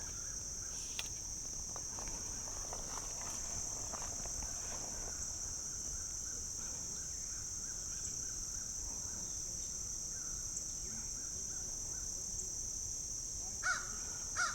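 A steady high-pitched chorus of insects, crickets by the sound, runs throughout. Near the end a crow caws twice.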